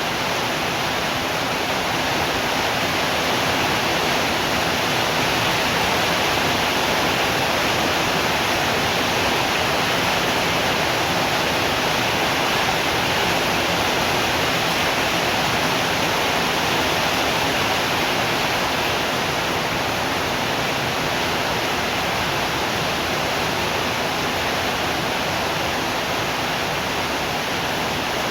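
Rain falling steadily, an even hiss that does not change, with no thunder.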